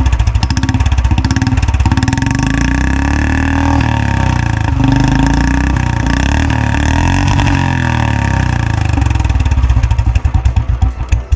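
Royal Enfield Bullet motorcycle's single-cylinder engine running loud through its exhaust. It thumps in separate beats at first, is revved up and down through the middle, and falls back to a pulsing beat near the end before cutting off.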